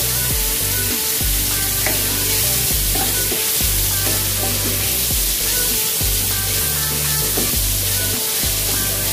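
Ground pork sizzling in a little oil in a wok while a wooden spatula stirs it, with a steady frying hiss. Background music with a bass line plays throughout.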